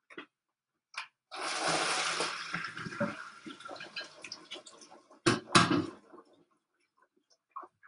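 Pot of cooked orzo and peas being drained into a colander in the sink: a rush of pouring water that fades away over a few seconds, followed by two sharp knocks.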